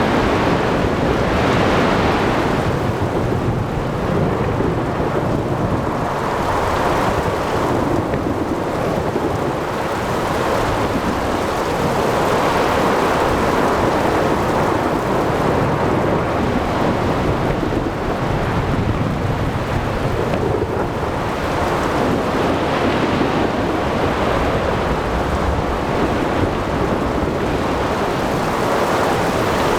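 Sea-storm ambience: steady rain and wind under a low thunder rumble, with surf swelling and falling back every few seconds.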